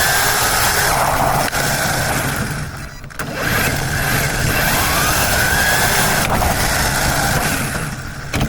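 RC car's motor running, its whine rising and falling in pitch as the car speeds up and slows, with a short lull about three seconds in.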